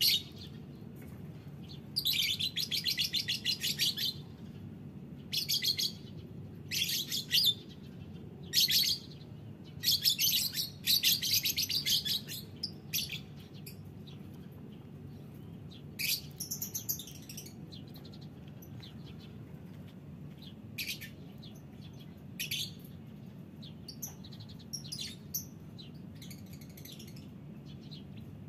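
Caged lovebirds chirping in shrill, rapid chattering bouts of a second or two, frequent in the first half and shorter and sparser later.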